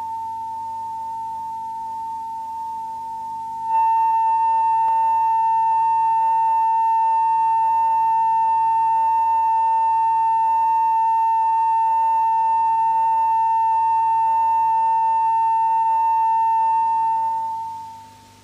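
Steady broadcast line-up test tone of about 1 kHz, a single unbroken pitch sounding under a TV station's start-up caption. It steps louder about four seconds in and fades out near the end.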